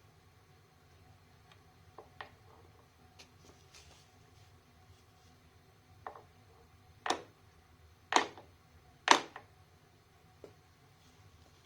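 Small hammer tapping transfer punches to mark screw-hole positions in a mini mill vise jaw: three sharp metal strikes about a second apart, after a lighter tap and a few faint clicks.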